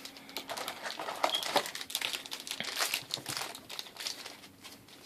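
Foil trading-card booster packs crinkling as they are handled and torn open, with cards being slid out, in quick irregular crackles.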